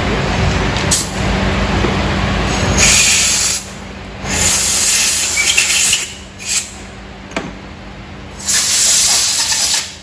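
Compressed-air blow gun on a shop air hose giving four hissing blasts over the engine, two short and two longer, each cut off abruptly.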